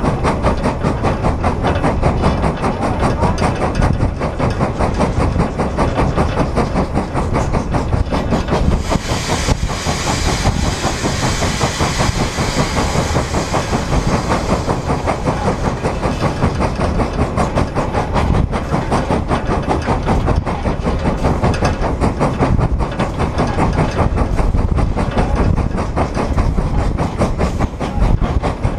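Frisco 1630, a 2-8-2 Mikado steam locomotive, working hard with a rapid, steady exhaust beat as it hauls a heavy 2900-ton train of 135 empty cars, with wheels clicking on the rail joints. A hiss of steam rises about nine seconds in and fades a few seconds later.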